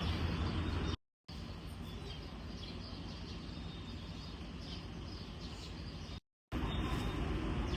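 Outdoor ambience: a steady low rumble with faint bird chirps, broken twice by a sudden cut to silence, about a second in and near the end.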